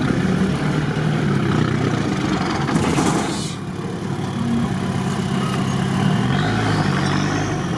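Off-road 4x4's engine running as the vehicle drives a sandy track, heard from inside the cab. A short hiss comes about three seconds in, and a faint high whine rises and falls near the end.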